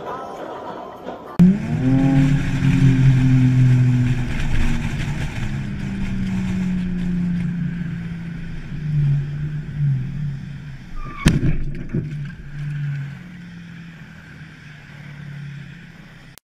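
A vehicle engine drones at a low, steady pitch. It starts abruptly with a brief upward sweep and later eases lower. A single sharp bang comes about eleven seconds in.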